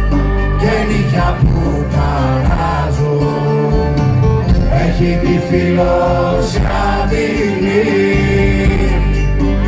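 Live Greek folk band playing: a male voice singing over plucked string instruments, with a steady low end underneath.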